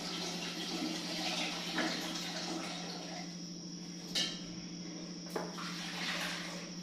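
Steady hiss-like background noise with a constant low hum, broken by two brief soft clicks about four and five seconds in.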